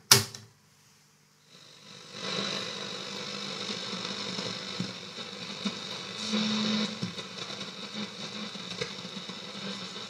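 A push-button on a 1952 Saba Freiburg W2 valve radio clicks once. After a second of quiet the set's loudspeaker comes up with steady shortwave static and hiss while the dial is being tuned, and a brief low hum comes through about six seconds in.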